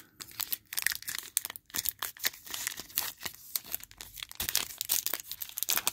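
A foil-wrapped trading-card pack being torn and peeled open by hand: irregular crinkling and crackling of the wrapper.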